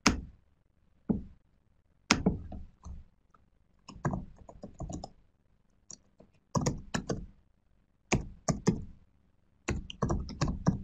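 Typing and clicking on a computer keyboard: short irregular runs of key clicks and taps, with silent gaps between them.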